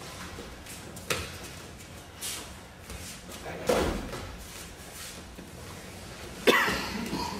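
Aikido breakfalls on a padded mat floor: four sharp slaps and thuds as thrown partners land, the loudest about halfway through and near the end, each with a short echo.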